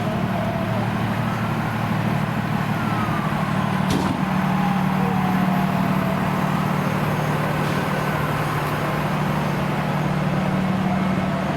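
Large diesel engine of a fire apparatus running steadily at idle, a low, even hum. A faint siren wails, rising and falling, and there is one sharp knock about four seconds in.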